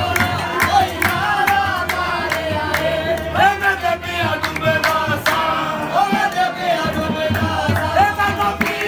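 Live qawwali: male voices singing a melodic line over a harmonium, with sharp percussive beats in a steady rhythm.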